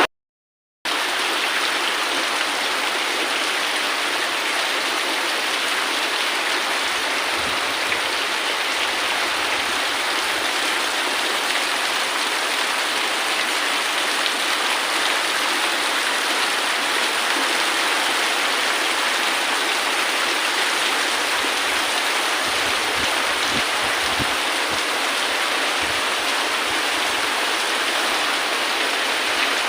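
Steady heavy rain, an even rushing hiss with no let-up. It starts after a silent break of under a second.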